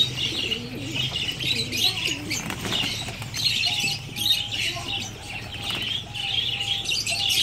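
White fantail pigeons flapping and fluttering their wings as they crowd around to be hand-fed, with a steady high chirping of birds over it.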